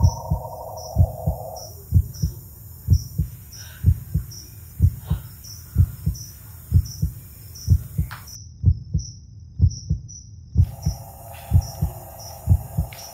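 Heartbeat sound effect: low double thuds, lub-dub, about one beat a second. A faint high pulsing tone runs above it and drops out for a couple of seconds past the middle.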